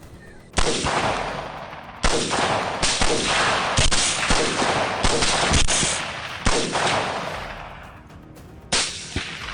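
A rapid, irregular volley of gunshots from several shooters firing on a group of hogs, about seven shots, each dying away in a long echo.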